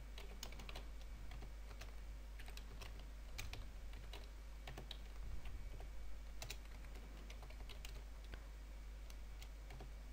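Computer keyboard typing: scattered, uneven keystrokes, faint, over a low steady hum.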